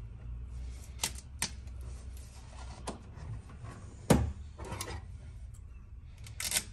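Scattered clicks and taps of hands working self-adhesive tape along a bare metal floor panel, with one louder knock about four seconds in, over a steady low hum.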